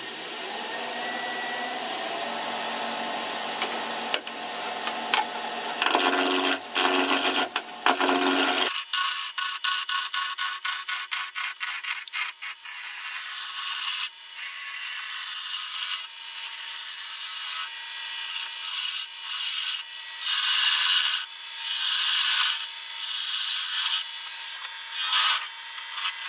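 A beech blank spinning on a wood lathe while a turning tool roughs it into a cylinder. The cutting starts about six seconds in with a run of quick ticks, then goes on in repeated bursts about a second long, one for each pass of the tool.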